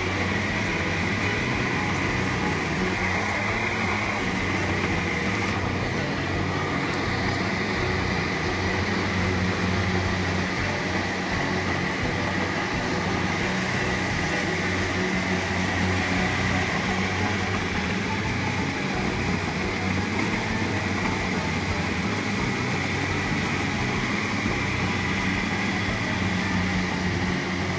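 Rice combine harvester running steadily as it cuts and threshes standing rice: a constant engine drone with a steady high whine over it.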